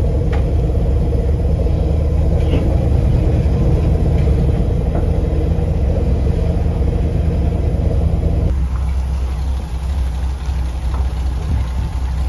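Chevrolet C10 pickup's engine running with a deep, steady rumble as the truck is driven slowly. About eight and a half seconds in the engine note drops off to a quieter, lower running sound.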